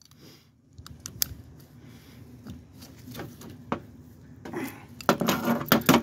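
Open-end wrenches clicking and scraping on a grease gun hose fitting and quick-connect coupler as the coupler is tightened, with a louder clatter of metal near the end.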